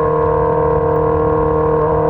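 2006 Honda CBR600RR's inline-four engine running steadily at high revs, its pitch holding level under a rough low rumble.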